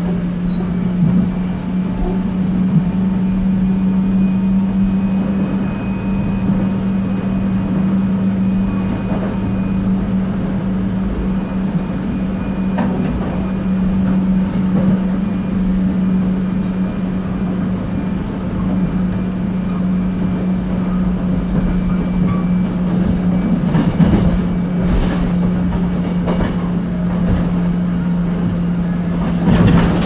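Inside a moving electric commuter train: a steady running rumble with a constant low hum, and a few wheel clacks over the rails near the end.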